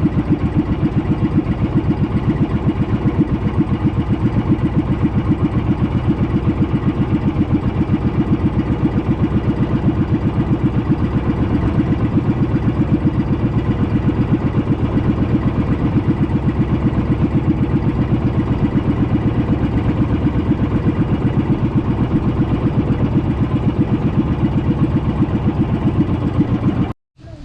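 Small fishing boat's engine running steadily at an even speed with a fast, regular chugging pulse. It cuts off suddenly just before the end.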